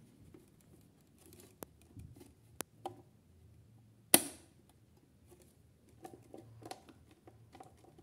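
Handling noise on an old toy washing machine's painted metal housing: scattered light taps, clicks and scrapes from fingers, with one sharp, loud click a little after four seconds in that rings briefly. The small motor is not running.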